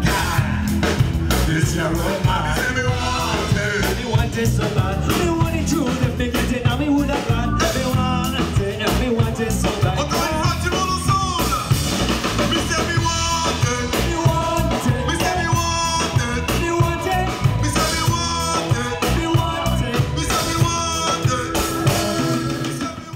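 Live band music: a male singer on a microphone over electric bass and drums, in an upbeat rock/ska style, cutting off abruptly at the end.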